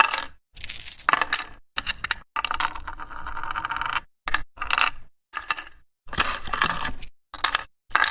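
Coins dropping and clinking in a string of about nine short, separate bursts, each cut off into dead silence before the next. One burst just before the middle rings on as a steadier metallic rattle for about a second.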